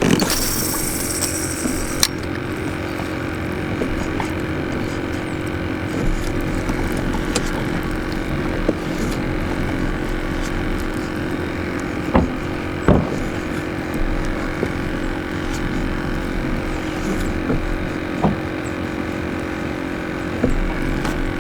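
Steady mechanical hum of a running engine, holding one even pitch. There is a short hiss in the first two seconds and a few sharp knocks or clicks about halfway through.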